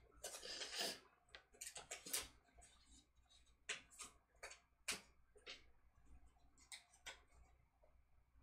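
Faint watercolour brush work on paper: a short scratchy swish in the first second, then a string of soft, irregular ticks and taps as the wet brush is dabbed and worked over the paper.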